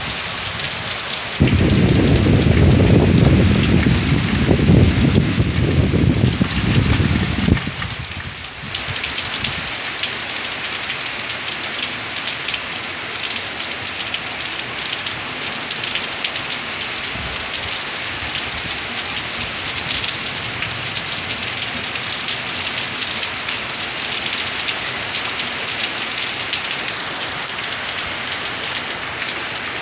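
Heavy rain pouring down in a dense, steady hiss. About a second and a half in, a loud low rumble rises over the rain and lasts some six seconds before stopping abruptly, leaving the rain alone.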